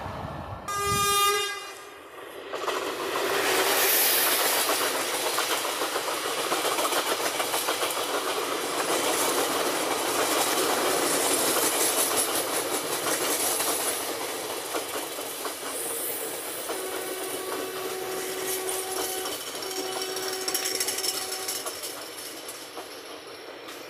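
A short train horn blast from an approaching Vande Bharat train, then coaches of a passenger train passing close by: a steady rush of wheels and bodies with clattering over the rail joints. Near the end a faint steady pitched tone sounds twice.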